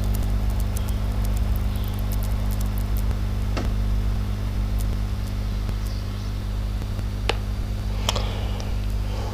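Steady low electrical hum over faint hiss, with a few faint clicks: one about three and a half seconds in and two more near the end.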